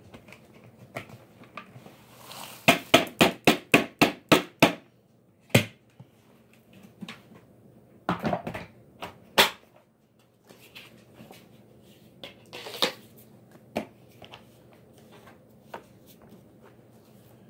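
A quick run of about eight sharp knocks at roughly four a second, then scattered single knocks and clicks, like hard objects being handled or tapped.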